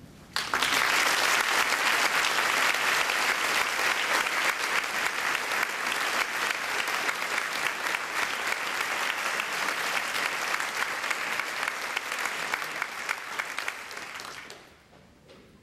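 Audience applauding: many hands clapping at once, starting suddenly about half a second in and dying away near the end.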